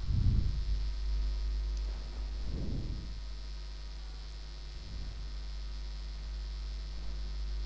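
Steady low electrical mains hum on the recording, with a few faint, muffled low sounds near the start, a little under three seconds in and about five seconds in.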